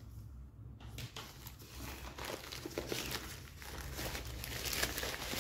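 Plastic courier mailer bag being cut with scissors and then pulled open by hand. It crinkles and rustles, louder in the second half.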